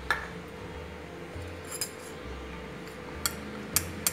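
A steel spoon clinking against small steel spice bowls and a steel plate: about five sharp clinks scattered through the few seconds, over a faint steady hum.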